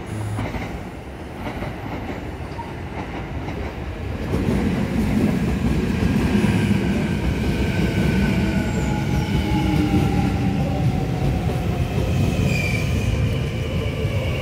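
Kintetsu Hinotori electric limited express passing close. Its rolling noise swells from about four seconds in, with several falling whines as the train slows.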